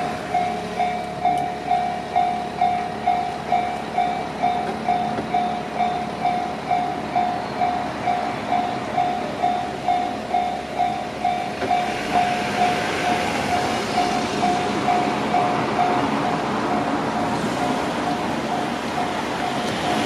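Japanese level-crossing warning bell ringing steadily about twice a second. From about twelve seconds in, a passing train's running noise swells up under and over the bell.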